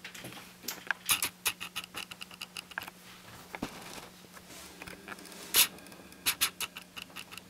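A paper booklet being handled and its pages turned: scattered light rustles and sharp clicks, the loudest about five and a half seconds in, over a faint steady hum.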